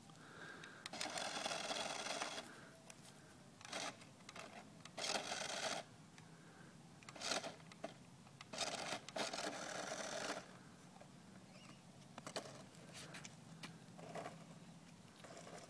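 Toy remote-control car's small electric motor whirring in several short bursts, the longest about one and a half seconds, as the car is driven in spurts.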